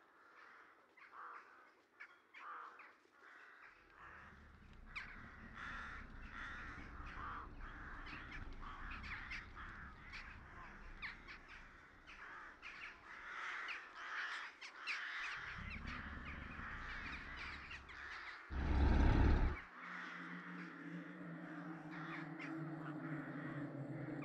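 Many crows cawing over and over in a dense chorus. A low rumble comes in after a few seconds. A loud, rumbling burst about a second long falls near the end, and a steady low hum follows it.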